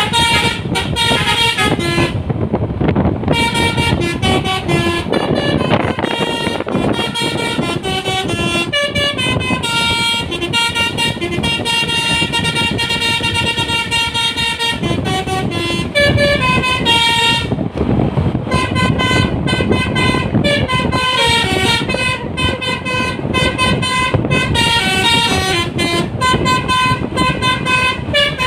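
Basuri telolet bus horn playing a fast melody of stepping notes almost without pause, with two short breaks, over the noise of the bus and traffic.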